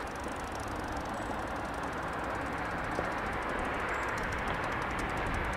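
Steady outdoor street background noise: an even low rumble and hiss with no distinct event.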